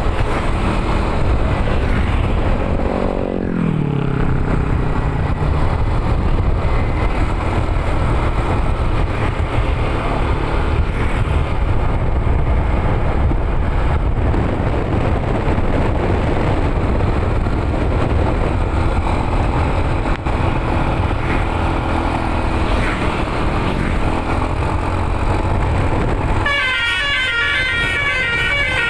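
Steady low engine and road noise from a moving vehicle, with a falling tone about three seconds in. Near the end a multi-tone telolet bus horn starts playing, quickly alternating between several high notes.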